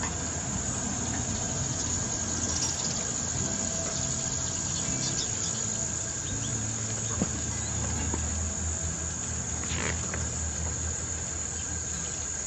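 Steady, high-pitched chorus of insects in a summer garden, with a low, steady rumble underneath.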